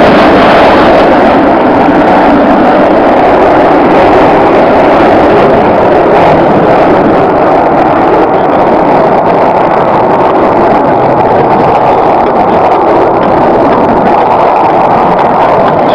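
Blue Angels F/A-18 Hornet jets passing, a loud, steady jet roar that eases only slightly toward the end.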